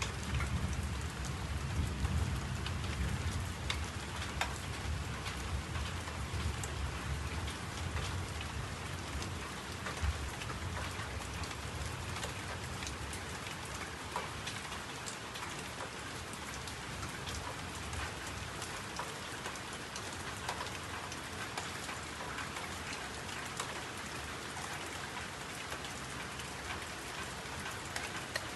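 Steady rain falling on a hard surface, with many small drop ticks. A low rumble sits under it for the first ten seconds or so, then fades.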